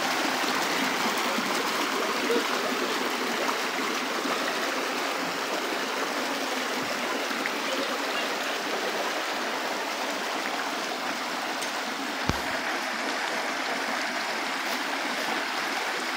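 Shallow rocky stream running over stones in small cascades, a steady rush of water. A single brief low thump about twelve seconds in.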